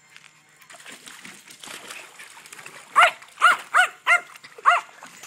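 A dog barking in play: five sharp, high-pitched barks in quick succession starting about three seconds in.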